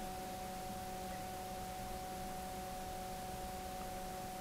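Faint steady hum with a few constant high tones over a light hiss: the recording's background noise between narration.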